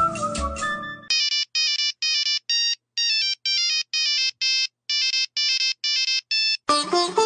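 Old Nokia mobile phone ringtone: a tune of short, clipped electronic beeps, each cleanly cut off before the next. It starts about a second in and gives way to other music near the end.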